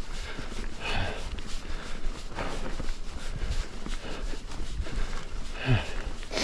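Mountain biker breathing hard on a rocky climb: a few heavy breaths and a short falling grunt near the end, over irregular low knocks and rattles of the bike going over roots and rocks.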